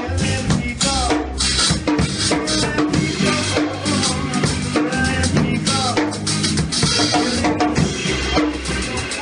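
A band playing music with a full drum kit, bass drum and snare beating steadily under bass and other instruments.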